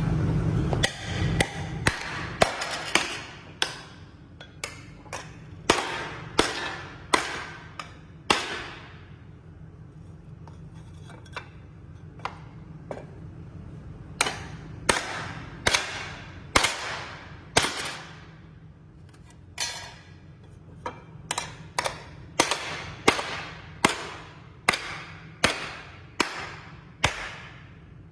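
Hammer striking a laser-welded 2 mm aluminum plate again and again to test the weld: sharp metallic blows, each ringing briefly. They come in two runs of about one or two a second, with a pause of a few seconds between them.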